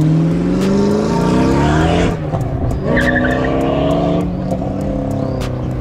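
Drift car's engine revving hard in two rising pulls, with a short drop in pitch about two seconds in, while its tyres skid and squeal.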